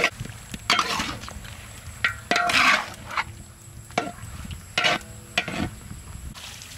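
A metal spatula scraping and turning raw marinated pork rib pieces in a large wok, about five scrapes and clatters, the longest and loudest a little over two seconds in, over light sizzling.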